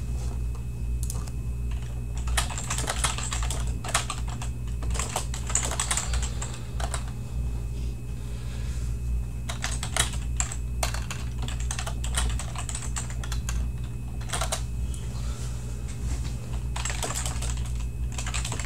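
Typing on a computer keyboard: short irregular keystrokes in clusters with brief pauses, over a steady low hum.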